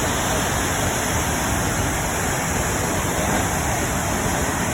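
Steady, loud rush of falling water from the Krimml Waterfalls, a continuous even noise without breaks.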